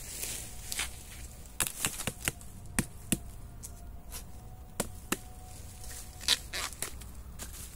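A long knife chopping at young bamboo shoots: about a dozen sharp, irregular chops, one every half second or so, with a pause in the middle.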